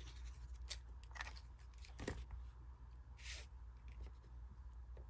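Faint handling of cardstock: small taps and clicks and a brief paper rustle about three seconds in as a glued panel is laid onto a card base, over a steady low hum.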